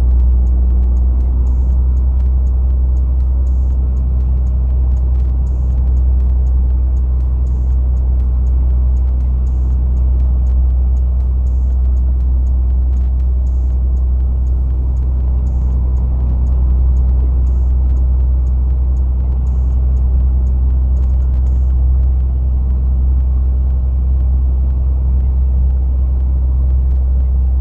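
Steady low drone of a semi-truck's diesel engine heard from inside the cab. A faint regular ticking runs alongside it and stops about five seconds before the end.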